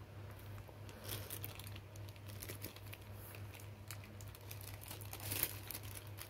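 Clear plastic packaging crinkling as it is handled, in irregular short crackles, with the loudest crackle about five and a half seconds in.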